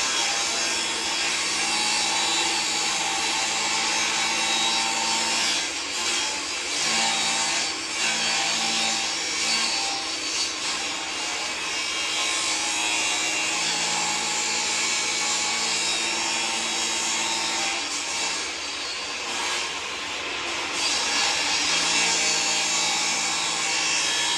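Electric power tool running steadily while cutting or grinding material off pressure-treated wood, its motor hum shifting a little as the load changes.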